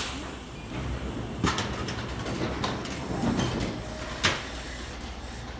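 A commuter train's sliding doors closing, with a few sharp knocks, the loudest about a second and a half in and again near four seconds, over the train's steady low hum.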